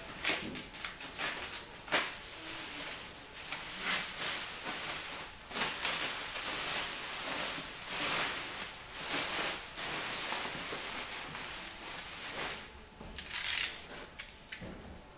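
Plastic sheeting crinkling and rustling as it is handled, in irregular crackly flurries with a last burst near the end.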